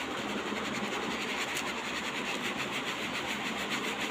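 Plastic sieve being shaken over rice flour, a steady rapid rhythmic rubbing and scratching as the powder sifts through the mesh.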